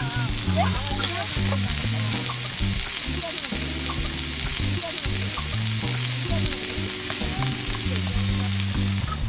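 Beef, mushroom and garlic sizzling in a small cast-iron pan over a mini brazier: a steady frying hiss. Soft background music with held low notes plays underneath.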